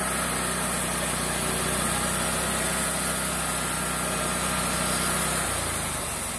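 Wood-Mizer LT40HD G25 bandsaw mill's gas engine running steadily with the band blade turning, slicing a thin venison steak. About five and a half seconds in, the engine note drops.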